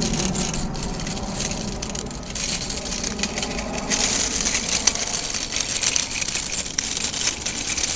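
Child's bicycle with training wheels rolling over pavement: a continuous rough rattle with many small clicks.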